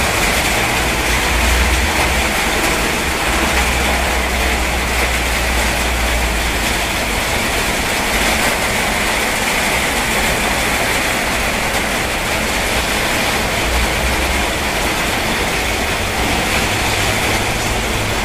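Fairly heavy rain falling steadily, a dense even hiss, with a low rumble underneath that is strongest for the first several seconds.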